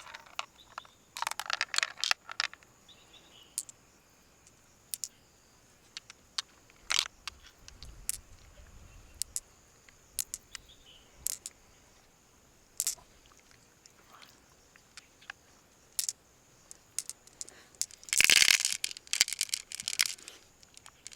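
Scattered sharp clicks and short scrapes of handling, bunched about a second in, with a longer, louder scraping, tearing noise about eighteen seconds in.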